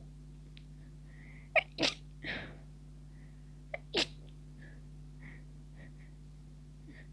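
Stifled sneezes from a person with a lingering cold: two sharp, suppressed bursts, each with a quick catch just before it, about two seconds in and about four seconds in, with a softer exhale after the first.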